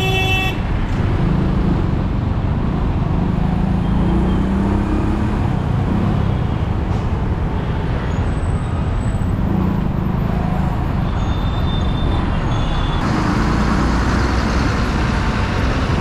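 Busy road traffic: a steady rumble of vehicle engines and tyres. A vehicle horn ends about half a second in.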